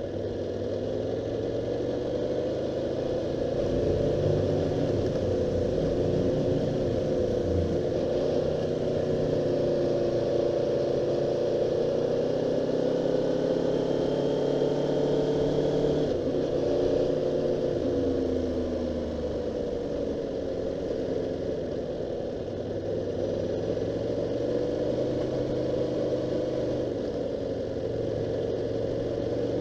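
Car engine running on a race circuit, its revs rising and falling over and over, picked up by an action camera's microphone in a recording made to show that camera's noise fault.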